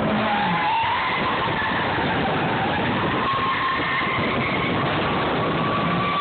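Nissan 240SX coupe's twin-cam four-cylinder engine running hard with an automatic gearbox and open differential while its rear tires squeal through a drift, a wavering squeal over steady engine and tire noise. A lower engine note drops away in the first half-second.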